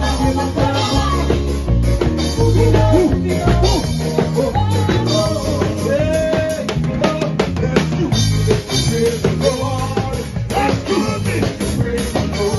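A live church band playing through PA speakers: a drum kit, electric bass and keyboard, with voices singing over them.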